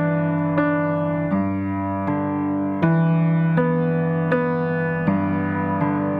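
Background piano music, with notes struck at an even, slow pace about every three-quarters of a second.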